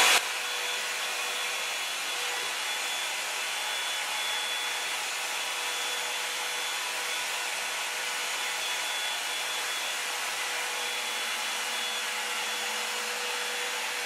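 Revlon One-Step hair dryer and volumizer hot-air brush running on its high setting while brushing through hair. It makes a steady rush of air with a faint, even motor hum and a thin high whine.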